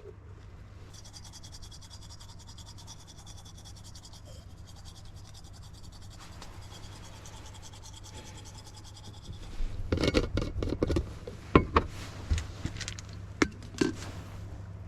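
Close-up scratching and rubbing for about a second and a half, then several sharp clicks and knocks, over a steady low hum.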